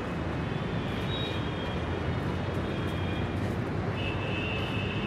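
Steady rumble of street traffic, with thin high tones over it; a stronger high tone comes in about four seconds in.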